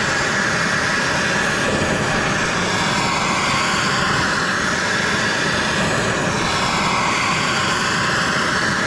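Gas torch flame burning with a steady hiss as it heats a rear axle housing's bearing bore, expanding the housing so a chilled wheel bearing will drop in.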